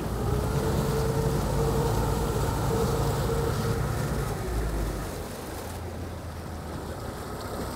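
Warmed-up outboard boat motor running in reverse at low throttle, backing the boat off its trailer. A steady engine hum that eases off about five seconds in.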